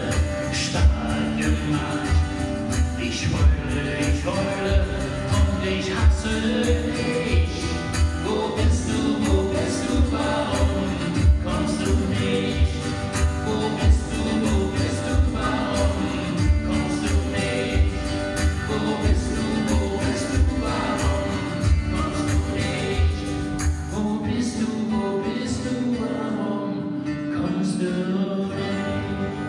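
Live acoustic music: two acoustic guitars playing with singing over a steady beat. Near the end the beat drops out and the guitars ring out more quietly.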